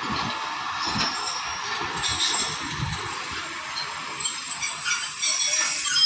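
Railway platform noise beside a standing passenger train: a steady hiss with faint high squeaks toward the end.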